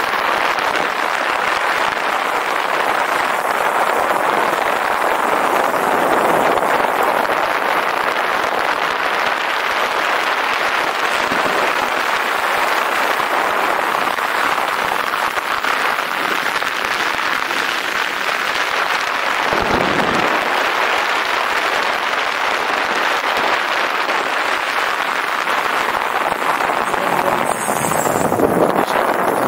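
Steady rushing, crackling noise of a fast downhill ride: wind on the camera microphone mixed with the rolling noise of the ride.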